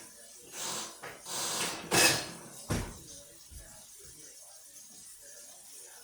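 Kitchen handling noises: several short scraping, rustling sounds in the first few seconds, then a knock with a low thump just under three seconds in, followed by a faint steady background.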